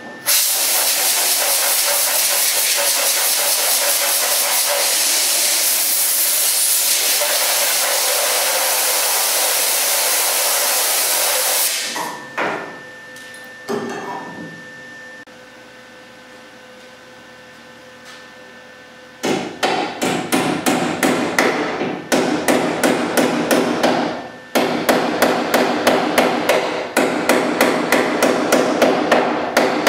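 MIG welder arc crackling in one long steady run on car body sheet metal, welding in a package tray extension; it stops about twelve seconds in. Later come rapid sharp hammer taps on the sheet metal, about three to four a second, in bursts with short pauses.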